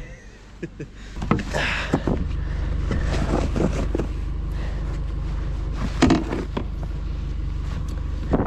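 Pickup truck engine idling with a steady low rumble that sets in about a second in. Over it come several scraping, crunching sounds as a plastic traction board is shoved into packed snow against a rear tyre; the loudest is about six seconds in.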